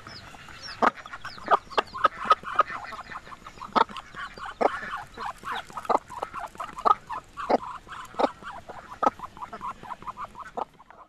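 A flock of free-range chickens clucking over and over in short, irregular calls, some overlapping, while feeding alongside Muscovy ducks.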